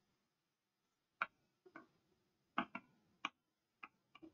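Chalk tapping against a chalkboard while writing letters: about nine short, sharp taps at irregular intervals, starting about a second in.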